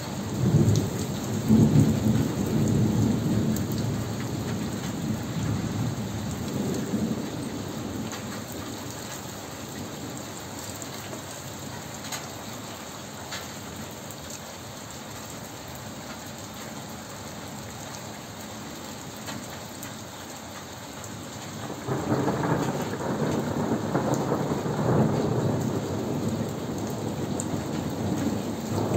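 Thunderstorm: steady rain falling, with a long low roll of thunder starting about a second in and fading over several seconds, and another rumble of thunder starting about three-quarters of the way through.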